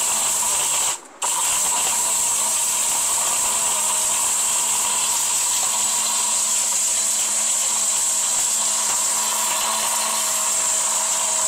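ORPAT 1600-watt, 22,000 rpm blender with a stainless-steel jar running flat out, grinding whole dried turmeric roots into powder: a steady whine over a loud hiss. The sound cuts out very briefly about a second in.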